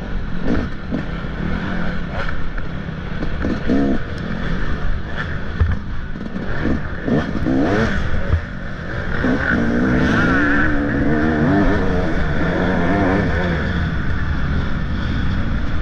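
Motocross dirt bike engine revving hard and backing off again and again, its pitch rising and falling as the throttle is worked, with bits of clatter.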